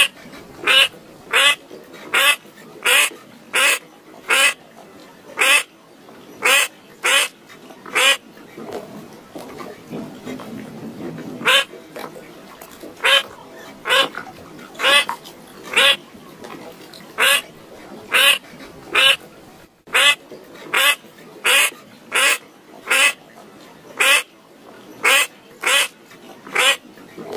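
A bird calling over and over in short, evenly spaced calls, about three every two seconds, with a break of a few seconds before the middle and a brief one later on.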